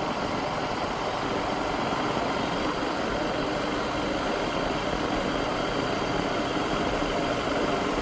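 Motorcycle engine running steadily while riding at moderate speed, a constant hum under a steady rush of road and air noise.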